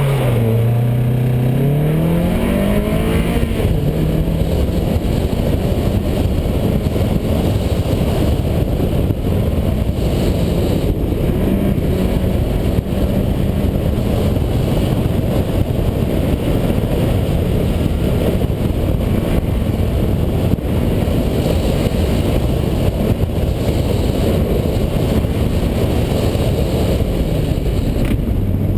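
Car engine pulling hard and climbing in pitch for the first few seconds, then running at high revs with varying throttle under hard driving on an autocross run, heard from inside the car along with steady road and wind noise.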